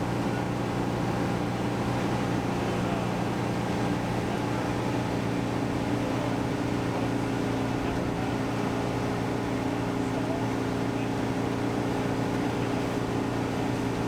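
A 1964 Volkswagen bus's air-cooled flat-four engine running steadily at highway cruising speed, about 62 mph, heard from inside the bus with road noise. The drone holds an even pitch and level throughout.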